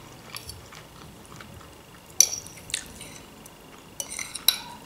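Metal fork clinking and scraping against a glass plate while scooping up buckwheat, with a sharp clink about two seconds in and a cluster of clicks near the end.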